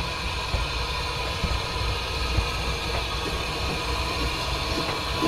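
Manning Wardle saddle-tank steam locomotive running slowly along the line: a steady low rumble and hiss with a few light clicks.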